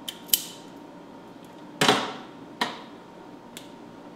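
Hand tools and wiring being handled inside a CNC machine's sheet-metal control cabinet: a few sharp clicks and snaps, with a louder clattering rustle about two seconds in and another sharp click just after.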